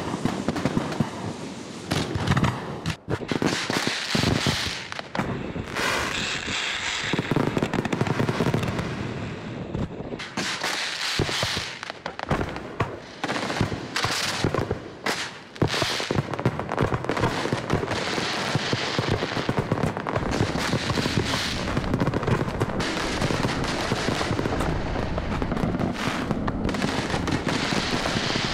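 Fireworks display: aerial shells bursting one after another, many sharp bangs in quick succession with hardly a pause.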